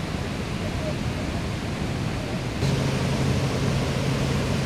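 Steady rushing roar of Victoria Falls. About halfway through it gets louder and a steady low hum joins in.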